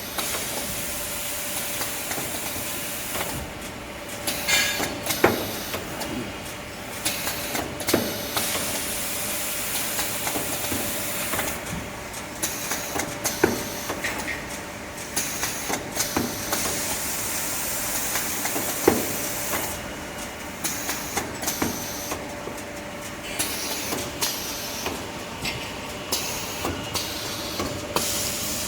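Auto-feeding tissue log bandsaw cutting machine running: a steady hum with one held tone, irregular sharp clunks every second or two, and a hiss that comes and goes.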